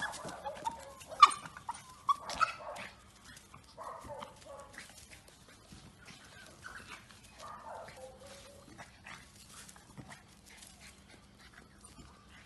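A dog's excited barks and whines, thickest in the first three seconds with two loud ones about a second and two seconds in, then fainter calls on and off.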